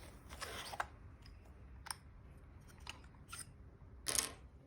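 Small hardware handled by hand: a few light clicks and short scrapes as the rear spacer is worked out of a glass-to-glass soft close pool-gate hinge, with the longest scrape near the end.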